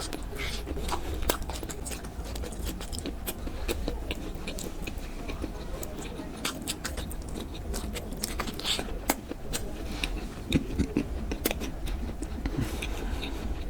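Eating sounds of a person chewing khichuri and chicken curry: wet chewing with many small, sharp mouth clicks, over a steady low hum.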